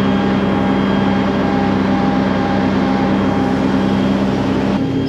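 Cat C15 diesel engine of a Peterbilt 379 running steadily, with a slight change in its note near the end.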